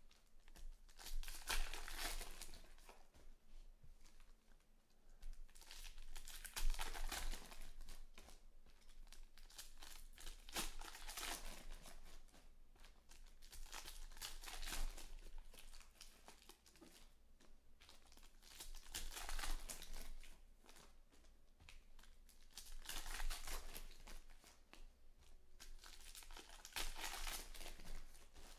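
Foil trading-card packs of 2020 Panini Select Baseball crinkling and being torn open by hand, in noisy swells every few seconds with quieter rustling of packs and cards between.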